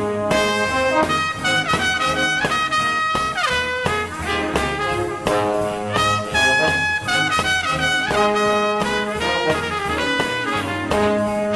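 Instrumental background music: brass instruments play a melody over a steady beat, with a note sliding down about three and a half seconds in.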